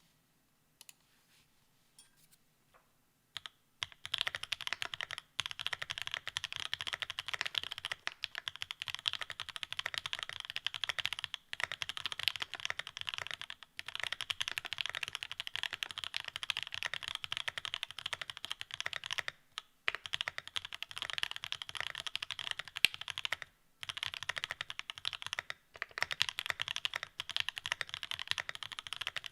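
Fast, continuous typing on The New Eighty mechanical keyboard fitted with Marshmallow R2 linear switches: a dense run of keystrokes with brief pauses every few seconds. A few single key presses come first, and the typing picks up about four seconds in.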